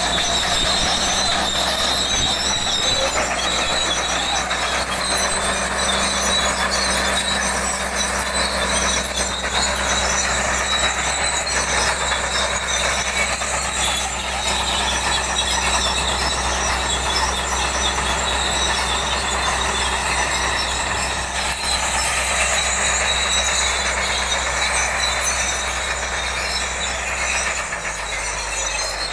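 Caterpillar D8H crawler tractor pulling a deep plough: its six-cylinder diesel runs steadily under load over the squeal and clank of its steel tracks. The sound grows fainter near the end as the machine moves away.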